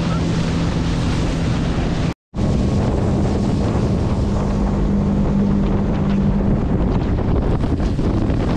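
Speedboat engine running at speed, with wind buffeting the microphone and water rushing and splashing against the hull. The sound drops out completely for a moment about two seconds in. The engine note fades about six and a half seconds in, leaving mostly wind and water.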